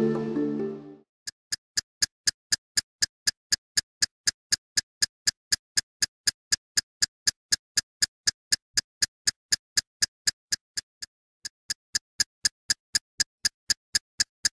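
Ticking sound effect: sharp, evenly spaced ticks, a little over four a second, with one short break near the end, after a music sting fades out in the first second.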